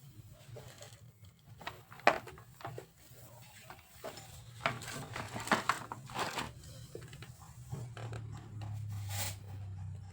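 Hand work on alternator parts at a workbench: irregular small clicks, taps and short scrapes, over a low steady hum that grows louder near the end.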